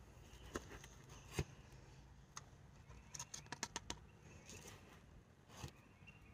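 Faint light clicks and taps from hands working with potted succulents, with a quick run of about six clicks a little past the middle.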